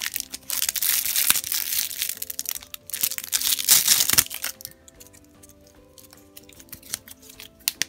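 Cellophane wrapper crinkling and tearing as it is pulled open around a slap bracelet for about the first four and a half seconds, over soft background music. A single sharp click comes near the end.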